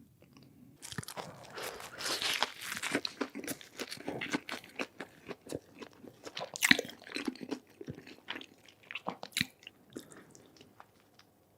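A burger being bitten into and chewed close to the microphone: crunchy, crackly bites starting about a second in, dense at first with one sharp loud crunch midway, then thinning to wetter chewing near the end.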